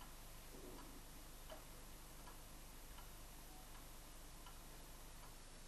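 Faint, even ticking of a clock, about one tick every three quarters of a second, over a low steady hum of room tone.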